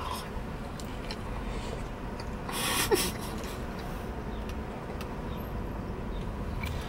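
A man chewing a mouthful of fried chicken sandwich with his mouth closed, with small soft mouth clicks and a breathy exhale through the nose about two and a half seconds in, over a faint steady hum.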